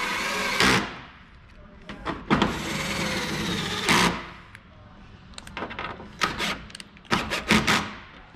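Cordless drill driving cowling screws. One run stops just under a second in, a second lasts nearly two seconds from about two seconds in, and several short bursts and clicks follow near the end.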